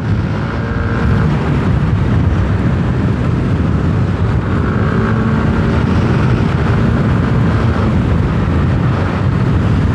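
Yamaha Aerox 155 scooter's single-cylinder engine running under way, its note swelling and easing with the throttle. Steady wind rush on the microphone runs beneath it.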